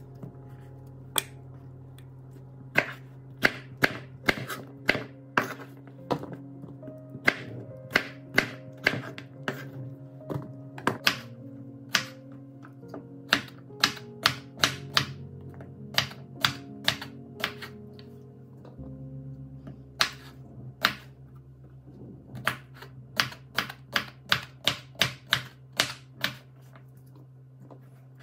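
Crinkle-cut knife chopping vegetables on a wooden cutting board: sharp knocks of the blade on the wood, in runs of about two a second, with a break of a couple of seconds past the middle.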